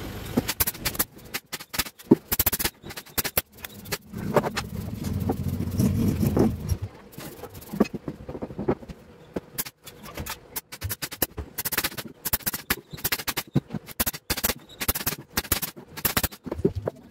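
Rapid, irregular clicks and knocks as thin plywood panels are laid on and fastened to plywood boxes, with a nail gun firing near the end. A low hum comes in for a few seconds near the middle.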